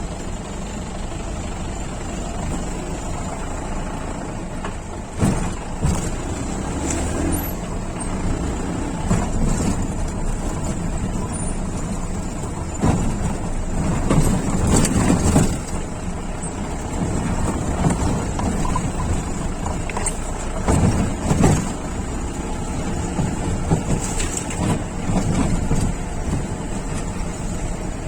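Jeep engine running as it drives a rough off-road track, with occasional knocks and jolts from the vehicle bouncing over the uneven ground.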